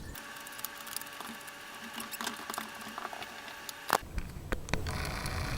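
Bench vise being screwed tight on a glued-up wood block: a run of light clicks and small squeaks, then a sharp knock about four seconds in.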